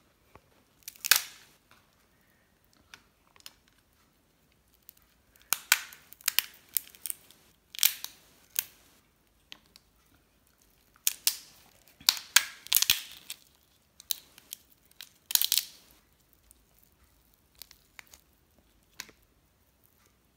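Cooked lobster shell cracking and snapping as it is broken apart by hand, in several short spells of sharp crackling with pauses between.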